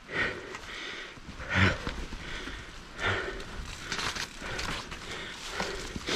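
A person breathing hard in repeated heavy puffs, about one every second or so.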